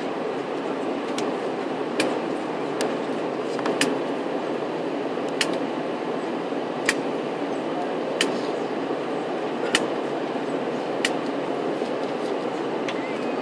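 Airliner cabin noise: the steady rush of the engines and airflow, with a short sharp click roughly every second and a half.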